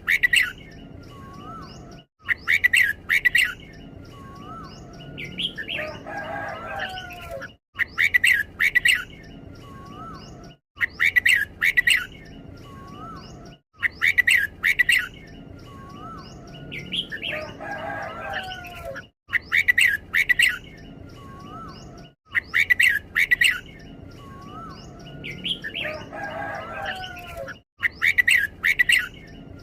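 Red-whiskered bulbul singing: short, loud, rapid song phrases repeated over and over, every few seconds. This is the doubled-up 'เบิ้ล' song that keepers value.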